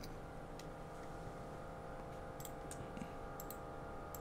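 Computer mouse clicking, a scattered run of light clicks that bunch up in the second half, over a steady electrical hum.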